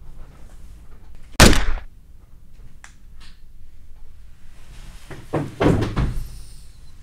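A single loud, sharp thud about a second and a half in, then a cluster of heavier knocks and thuds around five to six seconds in.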